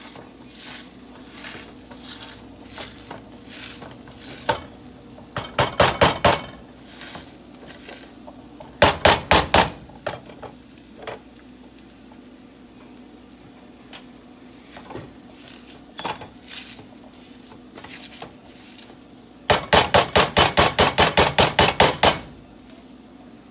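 Metal slotted spatula mashing cooked beans in a skillet, pressing and striking against the pan. Scattered taps build into short runs of rapid strikes, about five a second, with the longest run near the end.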